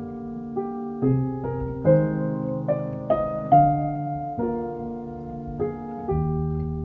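Background music: a gentle solo piano piece, with notes and chords struck about twice a second, each ringing and fading.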